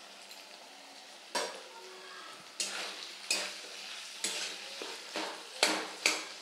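Metal spatula scraping and knocking against a metal kadai while stirring spiced potato chunks, over a faint frying sizzle. The strokes start about a second and a half in and come irregularly, about once a second.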